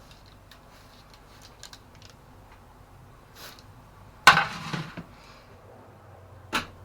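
Baking tray and wire rack clinking and scraping as baked shortbread biscuits are lifted off the tray onto the rack: light clicks, one loud clatter about four seconds in, and a sharp knock near the end.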